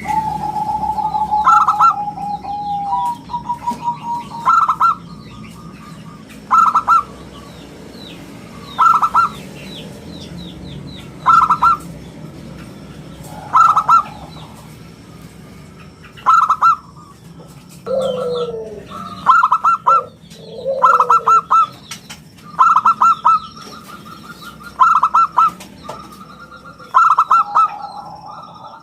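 Zebra dove (perkutut) cooing: short bursts of quick staccato notes repeated about every two seconds, running closer together in the second half. Smaller birds chirp faintly in the background.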